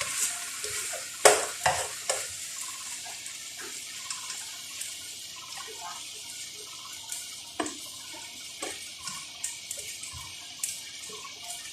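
A pan sizzling steadily on the stove, with a few sharp clinks and knocks of a utensil against the pan; the loudest comes about a second in.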